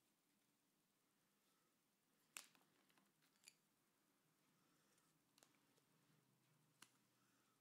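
Near silence broken by a handful of faint clicks and taps, the sharpest about two and a half seconds in: paper being handled and a pencil and plastic ruler set down on a marble tabletop.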